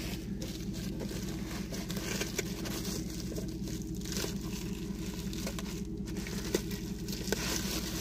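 Rustling and rubbing of a hand-held phone camera being moved about inside a car cabin, over a steady low hum, with a few faint clicks.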